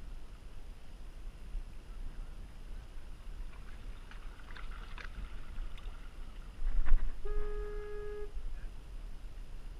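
Steady low wind rumble on the microphone, with scattered light clicks and a louder burst of noise a little past the middle. Soon after the burst, a steady pitched tone sounds for about a second.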